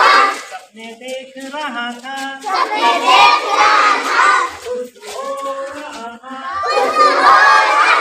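Group of children chanting loudly together in call and response: a single voice sings a short line about a second in, the group shouts back, and the pattern repeats, with the group answering again near the end.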